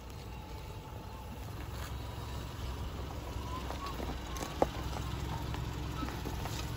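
Subaru Forester's flat-four engine running at low revs as the car crawls over rutted dirt, growing slowly louder as it comes closer, with one sharp snap about two-thirds of the way through.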